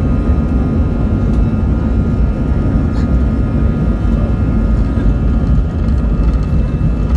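Airbus A320-family airliner's jet engines at takeoff power, heard from inside the cabin during the takeoff roll: a heavy, steady low rumble with thin steady whining tones above it.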